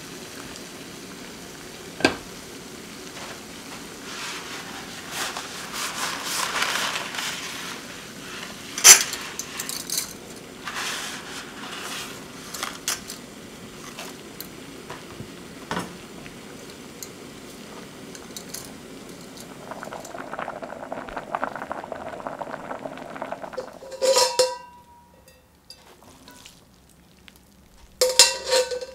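Water boiling in a metal saucepan on a portable gas stove, with metal tongs clicking and clinking against the pot as spaghetti is stirred in. Near the end come two sharp ringing clinks of a metal pan.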